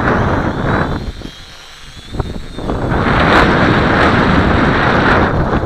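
Strong gusting wind buffeting the microphone, a loud rumble that eases for a couple of seconds about a second in and then picks up again.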